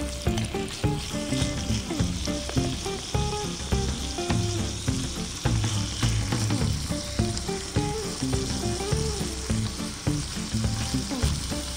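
Thinly sliced wagyu beef sizzling as it sears in a hot pan, the first step of a sukiyaki, with chopsticks moving and laying the slices. Soft background music plays underneath.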